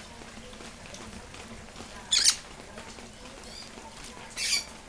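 Parrot bathing in a shallow tray of water, splashing and flapping its wings in two short, loud bursts about two seconds apart.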